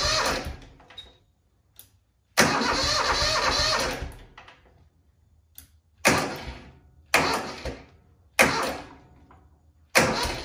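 Yanmar 155D tractor's starter motor cranking the diesel engine in separate bursts: a short tail at the start, one of about a second and a half, then four shorter jabs that each start sharply and die away. The engine does not catch. The starter is being worked over and over to reproduce an intermittent starter grind.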